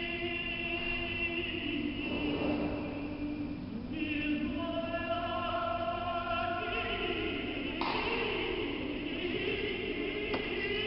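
Archival 1947 tape recording of a synagogue service: liturgical singing by a cantor and choir in long held notes, played back from a laptop speaker.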